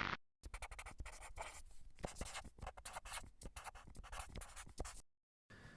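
Pencil scratching on paper in quick, irregular strokes, stopping abruptly near the end.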